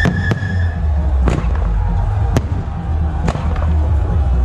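Aerial fireworks shells bursting overhead, about five sharp bangs spread unevenly over four seconds, over a steady low rumble.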